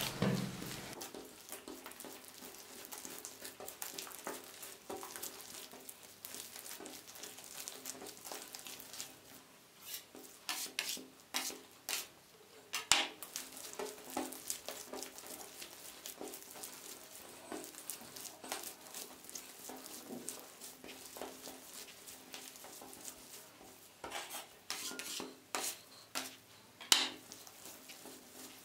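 Hands kneading soft, buttery bread dough on a wooden table: irregular sticky squishing and taps of dough and fingers against the wood, with a few louder knocks. The butter is being worked into the dough until no lumps remain.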